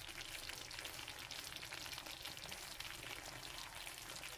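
Chicken legs in a creamy mushroom sauce sizzling and bubbling in a frying pan: a soft, steady crackle.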